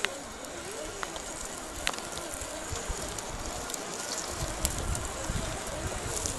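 Scale RC crawlers' electric motors and geared drivetrains whining faintly at low crawling speed, wavering in pitch with the throttle, with a few light clicks of tires or parts on rock. Wind rumbles on the microphone from about two-thirds of the way in.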